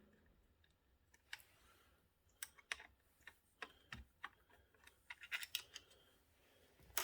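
Faint, irregular clicks and light taps of small hardware being handled around a motherboard's CPU socket while its arm is worked up.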